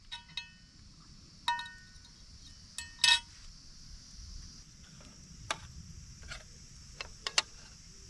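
Metal fork clinking and scraping against metal camp cookware (an iron griddle plate, then a mess tin): a string of sharp clinks with a short ring, the loudest about three seconds in and three quick ones near the end. A steady insect buzz goes on behind.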